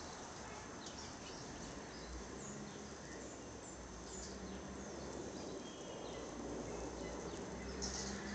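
Low, steady outdoor roar with a faint hum underneath and a few short high bird chirps, recorded on a phone. It is the 'roaring sound' that the recordist takes for the mysterious strange sound of 2012.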